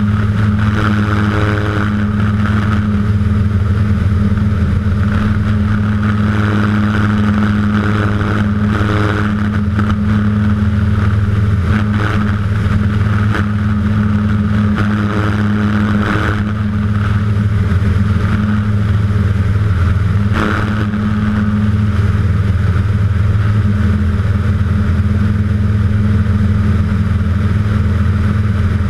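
A light aircraft's 100 hp Rotax four-cylinder engine and propeller running steadily at climb power, a constant drone heard from a camera on the wing.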